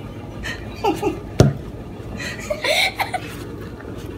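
Brief wordless vocal sounds from a person, like short snickers or chuckles, twice, with one sharp knock about a second and a half in.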